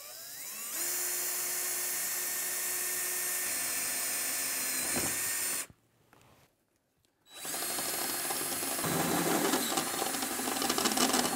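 DeWalt cordless drill drilling a hole through a truck's sheet-steel firewall. It winds up within the first second and runs steadily for about five seconds, stops, then runs again more roughly and unevenly as the bit cuts.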